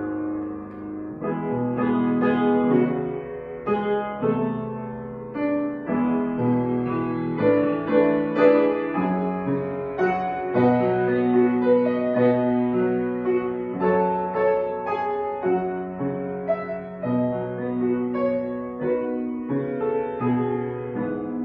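Piano music: chords and a melody, with notes struck and left to ring.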